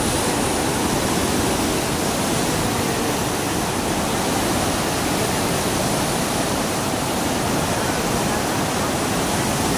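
Muddy floodwater rushing through the openings of a low concrete vented dam and churning below it: a steady, unbroken rush of turbulent water.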